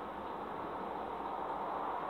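Steady hiss of background noise, with no clear events in it.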